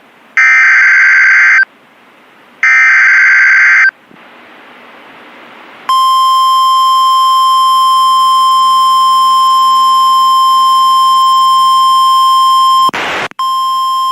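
Emergency Alert System alert on NOAA Weather Radio. The last two of the three warbling SAME header data bursts sound, each about a second long. After a short hiss, the steady 1050 Hz weather-radio warning alarm tone holds for about seven seconds. A brief crackle of static interrupts it about 13 seconds in, and then the tone resumes. The tone signals that a warning message is about to be read.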